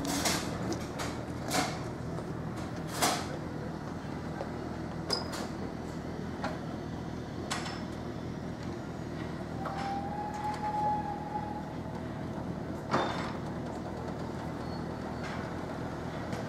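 Railway level crossing gates being swung open across the road: a series of sharp metallic clanks and knocks from the gates and their stops, with a short steady tone about ten seconds in.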